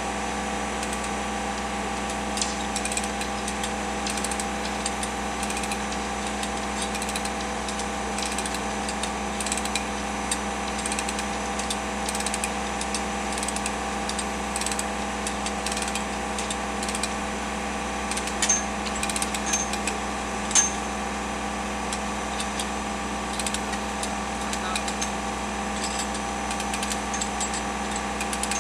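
The engine of the catenary work machine running steadily with a constant hum. Scattered light metallic clicks and taps come from the overhead-line fittings being worked by hand, with a few louder knocks about two-thirds of the way through.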